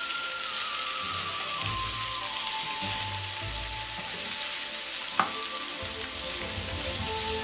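Pork bulgogi and onions sizzling in a frying pan as they are stir-fried with tongs. One sharp click comes about five seconds in.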